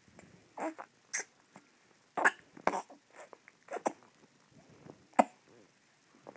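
Baby sucking on his fist: irregular wet sucking and lip-smacking noises in short bursts, the sharpest about two, two and a half and five seconds in.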